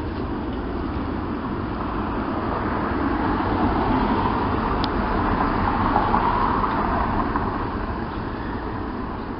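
Outdoor traffic noise: a steady rush that swells over a few seconds as a vehicle passes, then fades, over a low rumble.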